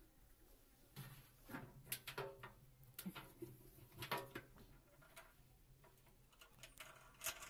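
Faint, scattered clicks and light knocks as a rubber V-belt is stretched by hand over the large plastic pulley of a honey extractor, the belt and pulley knocking against the drum's frame.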